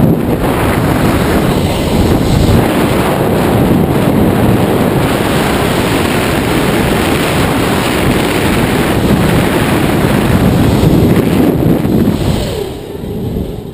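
Wind rushing over a body-worn action camera's microphone during a cable-controlled free fall from a tower. It is a loud, steady rush that dies away near the end as the descent slows for landing.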